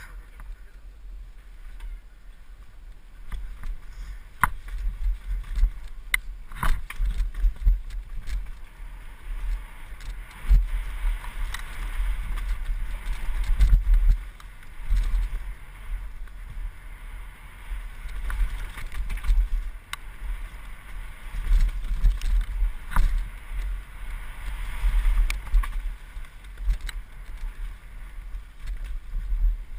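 Mountain bike descending a rough dirt singletrack: tyres rolling over dirt, roots and leaves, with frequent sharp knocks from bumps and a low, uneven rumble that rises and falls with the riding.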